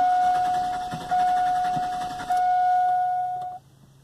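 Truck's dashboard warning chime, one steady tone struck again about every second and a quarter, four times, stopping about three and a half seconds in. Under it, fainter, the engine turns over on the starter without firing and stops about two and a half seconds in. This is the hot crank-no-start fault, which the mechanic blames on a failing crankshaft position sensor.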